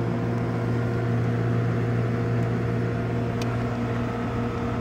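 Steady low electrical hum with even overtones from a running HVAC outdoor unit, with one faint tick about three and a half seconds in.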